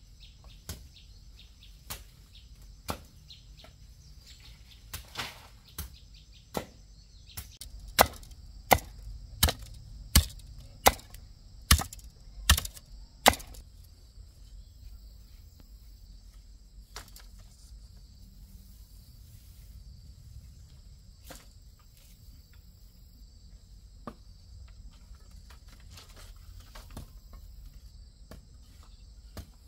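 Sharp wooden knocks of bamboo poles being struck and worked into a trellis. In the middle comes a run of about eight loud, even strokes, a little under a second apart, with scattered knocks before and after. A steady high buzz of insects runs underneath.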